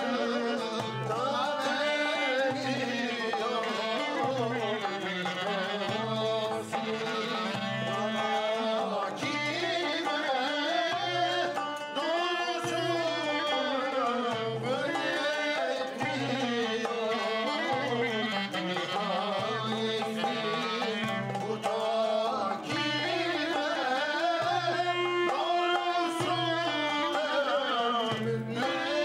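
Middle Eastern-style music: a melody that slides in pitch, with some singing, over a steady low hand-drum beat of about one stroke per second.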